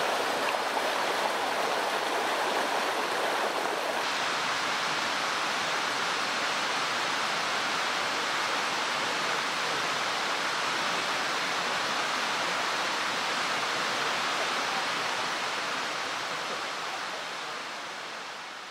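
Mountain stream rushing: a steady wash of water noise that shifts in tone about four seconds in, then fades out near the end.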